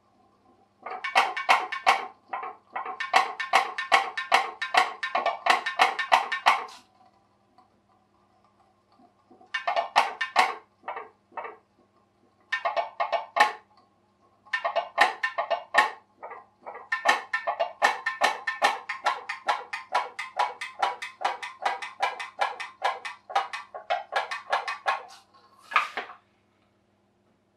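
Homemade pop-pop boat's boiler popping rapidly, about five sharp pops a second. The diaphragm is a jam jar lid's security popper, heated by two tea lights. The popping comes in runs of a few seconds, stops twice for a second or two and starts again, and a last single pop comes near the end.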